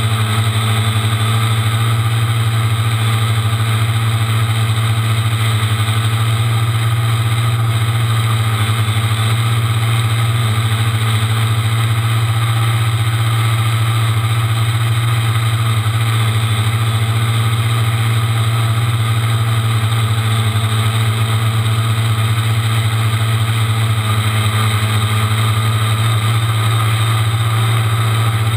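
Quadcopter's electric motors and propellers buzzing in flight, heard from a GoPro mounted on the craft. It is a loud steady drone with a strong low hum and many steady higher tones, holding almost the same pitch throughout.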